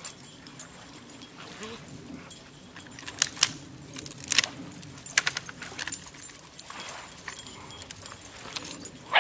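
Scattered sharp clinks and rattles of shells and gravel stirred up by dogs playing and a puppy mouthing a shell on the beach. The loudest clicks come about three to five seconds in, over a steady low rumble.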